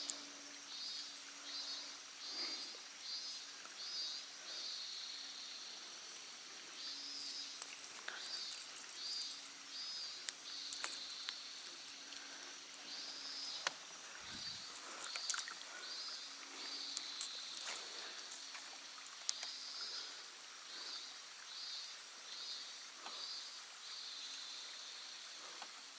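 Cicadas singing from the surrounding woods in repeated high-pitched pulsing phrases. Small sharp clicks from handling fishing tackle are scattered through the middle, with a soft low thump about fourteen seconds in.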